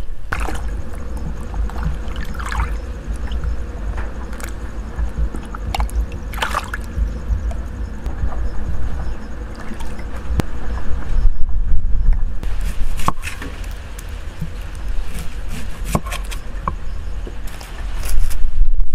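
Low wind rumble on the microphone, with scattered light clicks and knocks.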